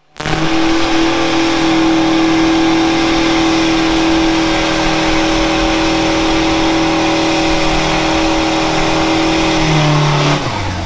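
Pickup truck engine held at high, steady revs during a burnout, its rear tyres spinning in place with a dense hiss. About ten seconds in, the revs fall away and the sound drops.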